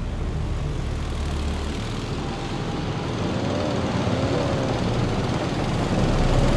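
Several military motorcycles with sidecars running in a column, their engines droning steadily and growing louder as they approach.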